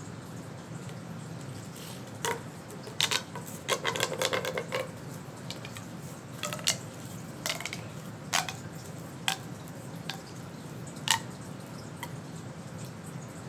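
Small hard objects clicking and clacking as they are handled, in scattered single clicks with a quick run of rapid clicks about four seconds in.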